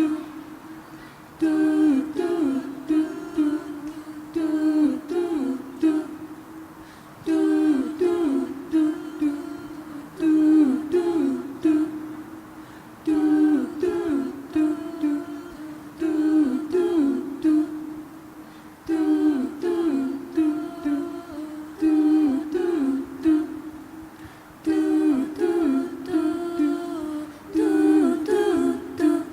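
A cappella voices singing an improvised circle song without words: a short sung phrase repeats in a loop about every six seconds over a steady hummed tone.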